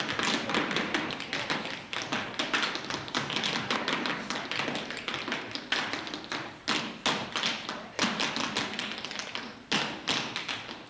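Tap shoes of three dancers striking a wooden stage floor in rapid, dense tap rhythms, with a few sharp, separated accent strikes in the second half.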